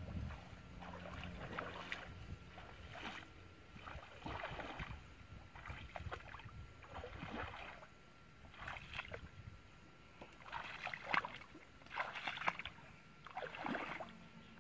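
Legs wading through shallow muddy water, a swishing splash with each step, about one every second and a half, louder near the end.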